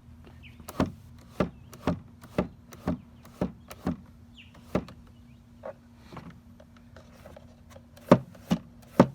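Carpet-edged HVAC blend door being worked back and forth by hand in its housing, giving a series of sharp knocks about two a second. The knocks thin out in the middle and come again near the end. The carpet edge moves smoothly, with no dragging.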